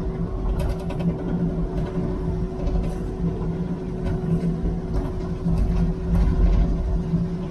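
Heavy equipment diesel engine running steadily, with a constant low hum and a few faint rattles and clicks.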